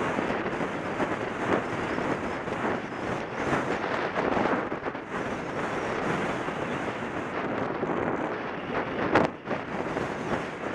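Wind rushing and buffeting over a rider's helmet-mounted camera microphone while the horse moves at speed, with a single sharp knock about nine seconds in.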